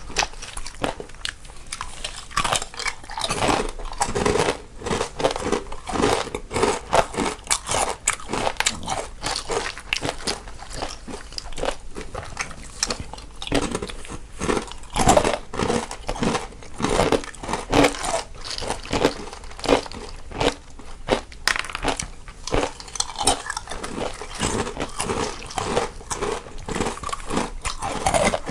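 Close-up crunching and chewing of crisp snacks by two people eating, one set to the left channel and one to the right: a dense, irregular run of bites and crackles.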